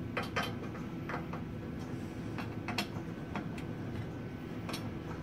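Scattered light clicks and taps of hands handling parts and fittings on a 3D printer's bed, over a steady low hum.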